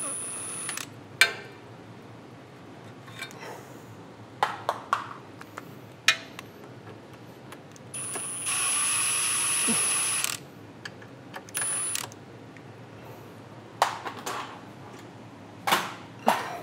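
Workshop sounds: scattered clinks and knocks, and a hiss with a thin high whistle lasting about two seconds roughly eight seconds in. Short whistles also come at the very start and about eleven and a half seconds in.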